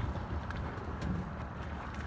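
Steady low rumble of wind and water noise from a boat on the water, with a couple of faint clicks about half a second and a second in.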